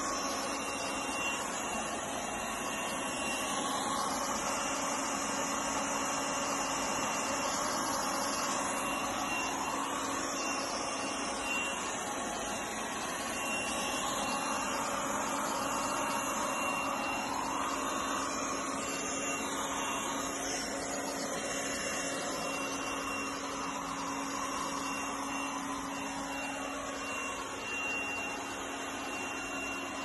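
OKP K8 robot vacuum cleaner running, a steady whir with a constant high-pitched tone over it.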